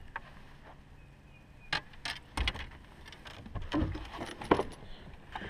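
Several sharp, irregular knocks and clattering rattles from gear on a bass boat's deck, the loudest one near the end.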